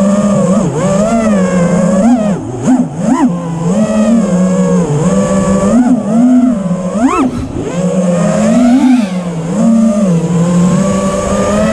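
FPV racing quadcopter's brushless motors and propellers whining, the pitch rising and falling as the throttle changes, with sharp brief climbs about two to three seconds in and again around seven seconds.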